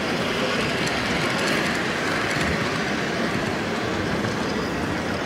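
H0-scale model electric passenger train rolling along the layout's track, a steady running noise with faint clicks, over the constant background noise of the exhibition hall.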